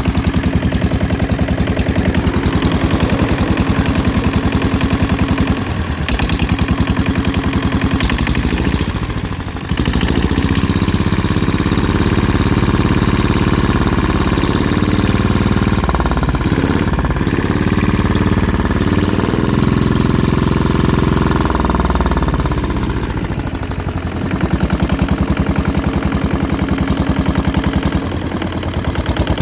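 Yanmar 1GM single-cylinder diesel engine running on test after an overhaul, with a fast, even knocking beat. About ten seconds in it runs smoother and a little louder for some twelve seconds, then settles back to its knocking beat; it runs fine.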